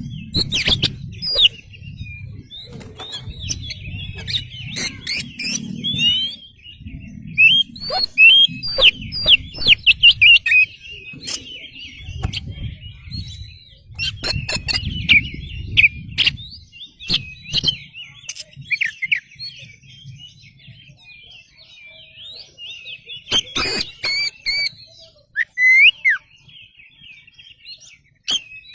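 Oriental magpie-robin singing a fast, varied song of whistled notes, quick sweeps and chatter, almost without pause. Bursts of low fluttering run through the first half or so, with a few sharp clicks.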